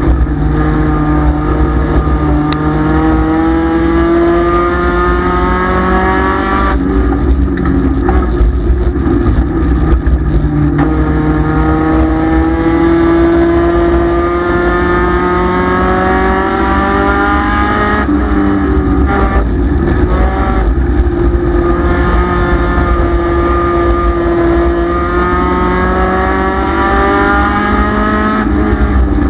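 Race car engine heard from inside the cockpit, running hard at speed: its revs climb steadily for long stretches and back off briefly about every eleven seconds, lap after lap.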